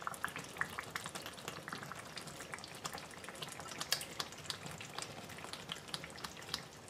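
Tomato stew cooking in oil in a pot, faintly sizzling with many small scattered crackles and pops.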